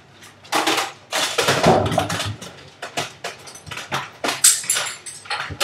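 An irregular string of sharp pops and clatters, louder and denser between about one and two and a half seconds in, from Nerf foam-dart blasters being fired and handled.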